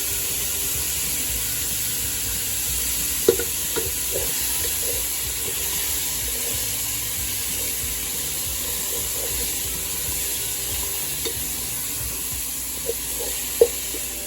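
Meat browning in hot oil in a frying pan: a steady sizzle, with a spatula stirring and knocking against the pan a few times, loudest about three seconds in and near the end.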